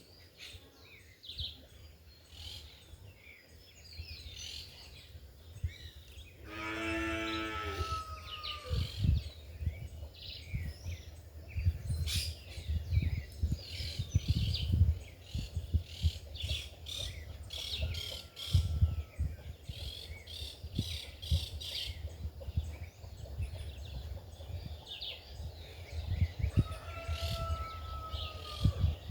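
Small birds chirping and singing throughout, with wind gusting on the microphone. A chicken calls once about a quarter of the way in and again near the end.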